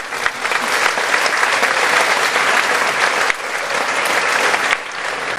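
Audience applauding: a dense patter of many hands clapping that starts at once, holds steady, then thins out near the end.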